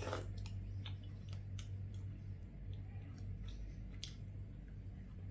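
Close-up eating sounds: chewing, with scattered small wet clicks and smacks of mouth and lips. A steady low hum runs underneath.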